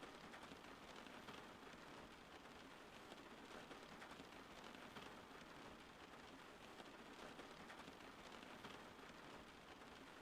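Faint, steady rain: an even, continuous patter of drops with no thunder.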